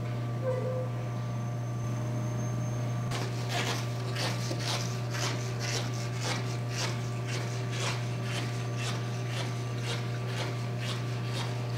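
A steady low hum, joined from about three seconds in by an irregular run of soft scratching, rubbing sounds, two or three a second.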